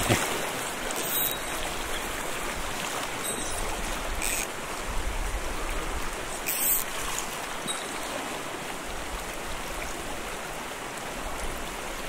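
Mountain stream running with a steady rush of water, with a few brief sharp sounds over it.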